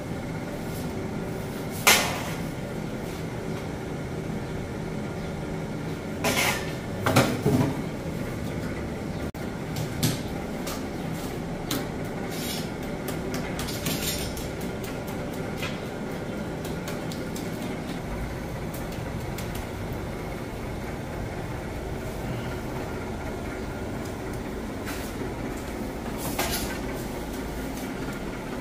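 Bakery working sounds: a steady mechanical hum with scattered clatters and knocks. The sharpest knock comes about two seconds in, and a cluster of them falls around seven seconds.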